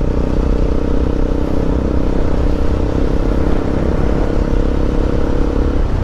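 Motorcycle engine running at a steady speed while riding, with heavy wind rumble on the microphone.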